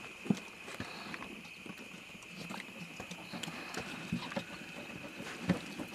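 Scattered knocks, clicks and rustles from a deer carcass being handled and cut open to examine the heart, over a steady high-pitched hum.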